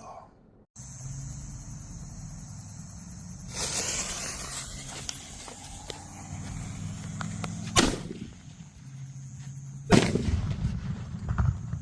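Mini titanium salute firework exploding: two sharp, loud bangs about two seconds apart, the second slightly louder and followed by a rumble. A brief hiss comes a few seconds before the first bang.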